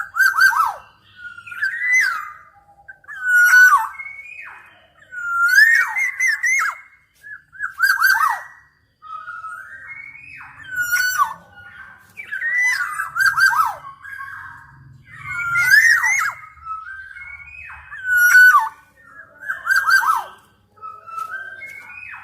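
Black-naped oriole calling over and over: short, fluty whistled phrases, many sliding down in pitch, repeated about every one to two seconds.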